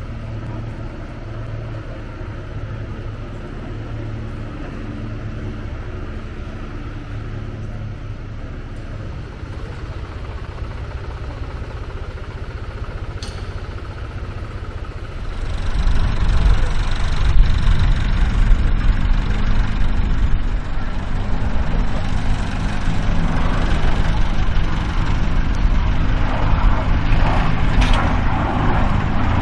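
Aircraft piston engines running with a steady low hum. About halfway through, a louder, rougher engine rumble takes over.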